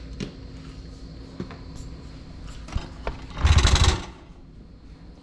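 Handling noises: scattered small clicks and knocks, and a loud rubbing rustle lasting about half a second past the middle.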